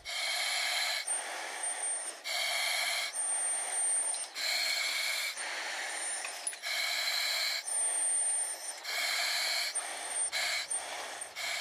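Breathing through a firefighter's SCBA mask and regulator: a steady rhythm of hissing breaths about a second each, roughly one full breath every two seconds, with a faint high whistle on alternate breaths.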